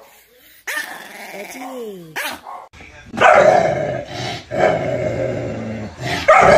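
A small long-haired dog making short gliding growly whines, then, louder, a puppy growling and snarling over its food bowl, with sharp loud outbursts about three seconds in and near the end: food guarding.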